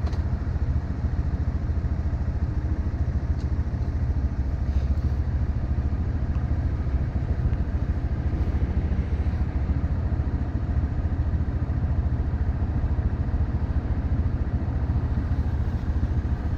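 Honda Monkey 125's small single-cylinder four-stroke engine idling steadily, with an even low pulsing.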